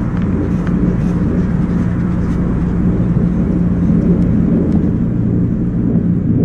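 A loud, steady low drone: a deep hum of several held tones, unchanging throughout, with a few faint ticks above it.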